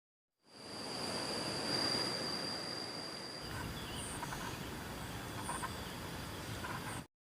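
Steady outdoor ambient rush with a thin, high, steady whine running through it. The sound changes about three seconds in, and a few faint short chirps follow. It starts and stops abruptly at edits.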